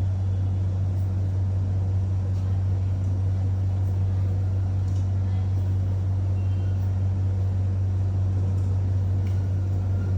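Steady low-pitched hum of running machinery, unchanging throughout, with a few faint ticks.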